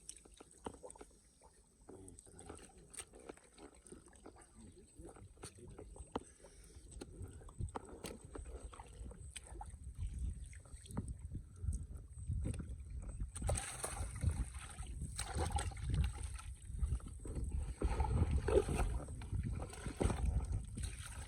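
Shallow field water sloshing and splashing as someone wades and gropes by hand for fish, with scattered small knocks. It grows louder after about ten seconds.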